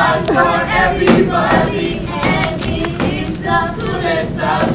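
Several voices singing together, the lyrics of a math-themed song, with crowd noise from an audience.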